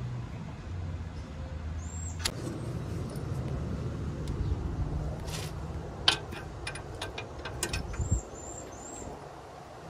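Steel wrench clinking against the pickup's steel front suspension parts: a few sharp metallic clicks, the loudest about six seconds in and several more over the next two seconds, over a steady low rumble like a vehicle running.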